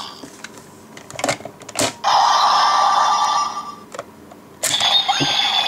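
Electronic sound effects from a DX Sengoku Driver toy belt's small speaker, between sharp plastic clicks: a few clicks, then a loud steady buzzing effect from about two seconds in for over a second, and another short electronic effect near the end.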